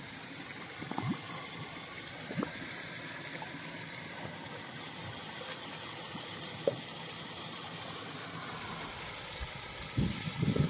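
Steady rush of a mountain stream and small waterfall, with a few short splashes. The splashes come in a cluster near the end.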